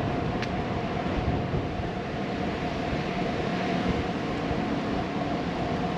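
Steady rushing noise of a bicycle in motion: wind on the microphone and tyres rolling over the street, with a faint steady whine under it. There is a short, high click about half a second in.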